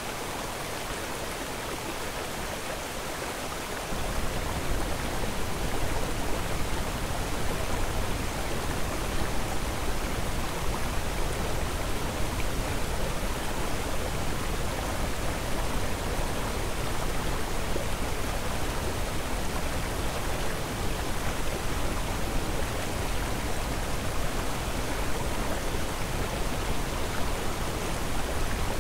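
A steady rushing noise with no distinct events. About four seconds in it gets louder and a deep rumble joins it.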